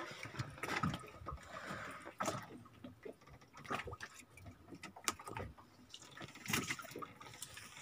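Water lapping faintly against a wooden fishing boat, with scattered light knocks and clicks on board.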